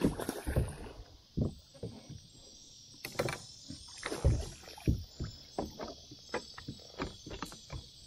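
Irregular knocks, bumps and rustles of handling aboard a kayak, with a sleeve brushing close to the camera microphone, over a steady hiss. The loudest thumps fall at the very start and about four seconds in.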